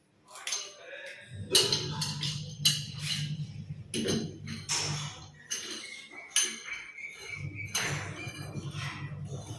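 Irregular metallic clinks, knocks and scrapes of plumbing tools and fittings being handled, over a low hum that comes and goes, with a brief high squeak about six seconds in.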